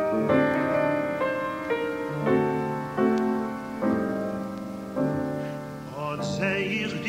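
Piano introduction, slow sustained chords changing every second or so; about six seconds in, a cantor's male voice comes in singing with a wide vibrato over the piano.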